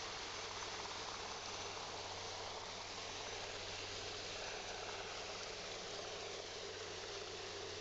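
Steady, even hiss of background noise with a faint low hum under it; no bird call stands out.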